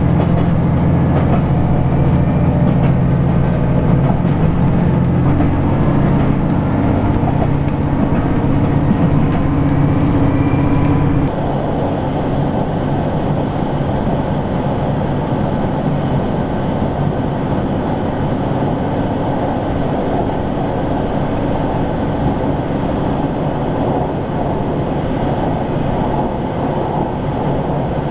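A JR Shikoku 2000 series diesel train heard from inside the passenger car. The diesel engine drones under power, its pitch rising a little. About eleven seconds in this gives way suddenly to the steady rushing noise of the train running at speed.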